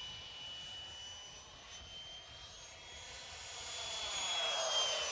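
Radio-controlled model jet flying, its engine a steady high whine that grows louder and drops in pitch as it passes by, about four to five seconds in.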